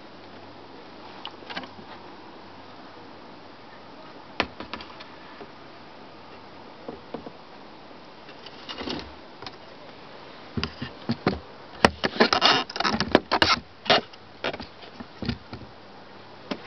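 Kayak paddling on calm water: a few scattered drips and knocks at first, then from about two-thirds in a quick run of paddle splashes and clicks of the paddle against the hull.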